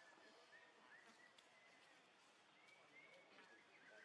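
Near silence: faint outdoor ambience with a few short, high chirping animal calls, a cluster of them near the end.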